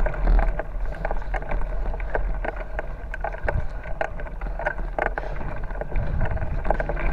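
A bicycle rolling down a rough dirt track, with wind rumbling on the microphone and irregular clicks and rattles from the bike over the bumps.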